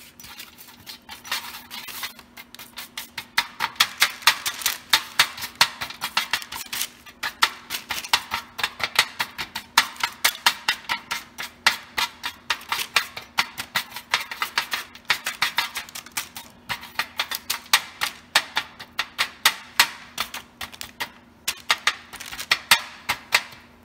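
A metal spoon spreading pumpkin seeds across a parchment-lined baking pan: quick, irregular clicks and taps, many a second, as the seeds are pushed apart and the spoon knocks the pan.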